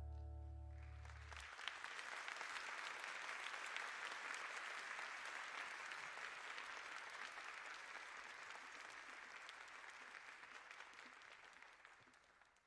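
The last held chord of a live band dies away, then a concert audience applauds, the clapping slowly fading out near the end.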